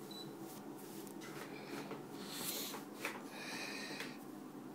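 A digital body-composition bathroom scale gives one short high beep as it switches on, followed by faint rustling and handling noise.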